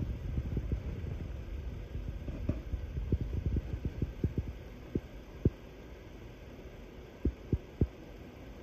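Handling noise from a handheld phone camera carried while walking: a low rumble and irregular dull thumps. The rumble eases after the first couple of seconds, and a quick run of three thumps comes near the end.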